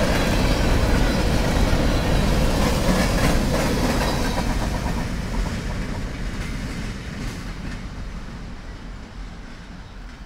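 A train rolling past on the CSX St. Louis Line, the wheels clattering on the rails, loud at first and fading steadily over the second half as it moves away.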